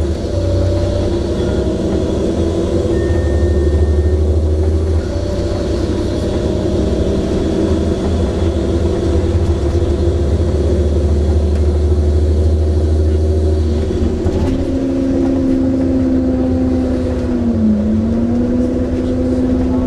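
Volvo Olympian double-decker bus's engine and ZF automatic gearbox running, a steady drone whose note shifts about five seconds in and again near fourteen seconds, where a new tone appears, sags briefly and climbs back.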